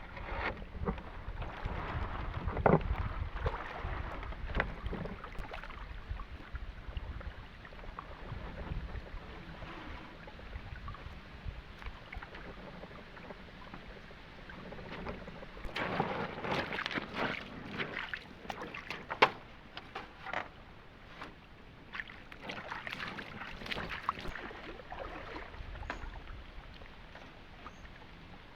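Water splashing and sloshing with scattered knocks and clicks, over a low rumble of wind on the microphone; the knocking gets busier a little past halfway.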